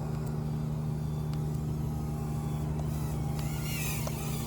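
Small H1 Neon toy quadcopter's four propellers buzzing steadily as it flies, a constant pitched hum.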